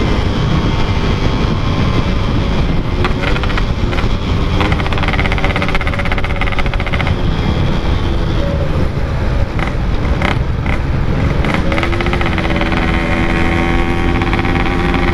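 Yamaha RX-King two-stroke single-cylinder motorcycle engine running under way through a Packing Power exhaust, with wind noise on the microphone. The engine pitch wavers with the throttle and climbs steadily over the last few seconds as the bike accelerates.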